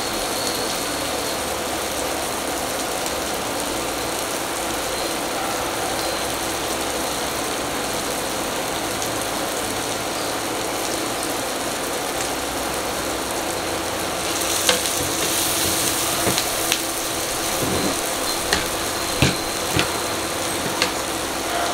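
Butter and onions sizzling steadily in a frying pan. About two-thirds of the way through, the sizzle gets brighter and louder as flaked milkfish is pushed into the hot pan with a wooden spatula, with scattered clicks and knocks of the spatula against the plate and pan.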